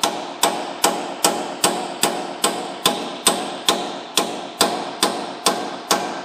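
Hammer striking a cold chisel wedged in the pinch slot of a Ford Explorer's rear steering knuckle: a steady run of about fifteen metal-on-metal blows, roughly two and a half a second, each with a short ring. The chisel is spreading the knuckle's ears so the rusted upper control arm can be popped out.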